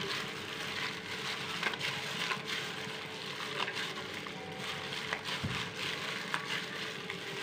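Ground fish paste being squeezed and kneaded by a plastic-gloved hand in a stainless steel bowl: soft, irregular wet squishing with rustling of the glove and small ticks.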